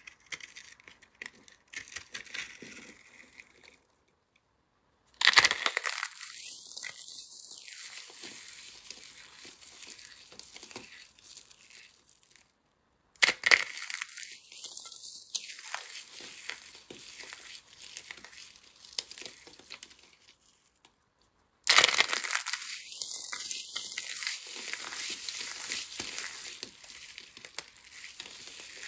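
Thin, brittle soap box shells crushed and crumbled in the fingers, three times over: each bout opens with a sharp crack and goes on as dense crackling and crinkling as the shells break into flakes. In the first few seconds, faint clicks of a blade scoring soap into cubes.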